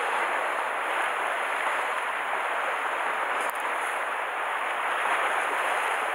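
Sea waves washing steadily against shore rocks, a continuous hiss of surf.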